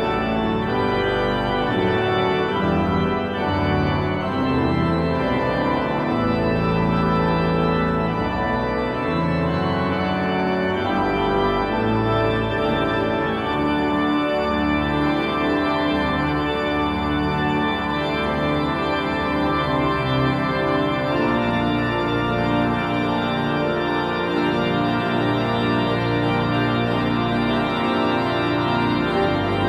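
Church pipe organ playing the postlude: sustained, full chords with shifting harmony over a moving bass, at a steady level.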